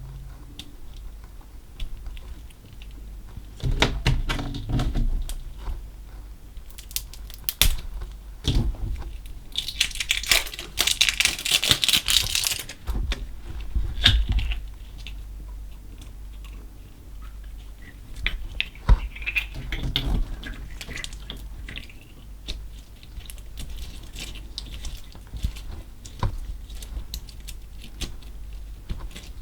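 Slime with small coloured particles mixed in, squeezed and stretched by hand, making sticky clicks, pops and squishes. There is a dense crackling stretch about ten to thirteen seconds in.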